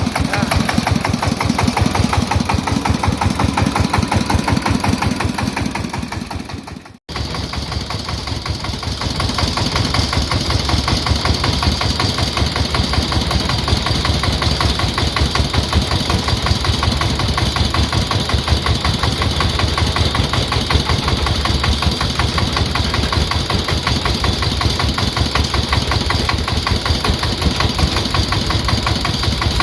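Single-cylinder diesel engine of a công nông farm truck running at idle with a fast, even chugging knock. The sound fades and drops out for a split second about a quarter of the way in, then the engine is heard running steadily again.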